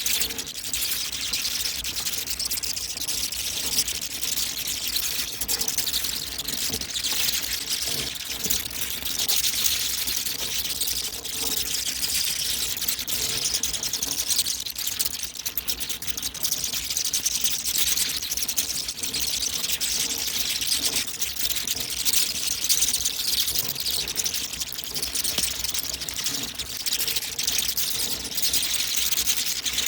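Many bats chittering and squeaking together: a dense, continuous high-pitched chatter of rapid clicks.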